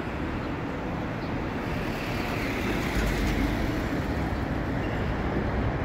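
Steady outdoor street background noise, an even hiss and rumble like distant traffic.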